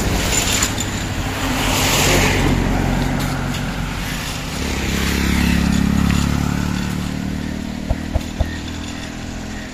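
A motor vehicle's engine going past on the road, swelling to its loudest about halfway through and then fading, with a few light clicks near the end.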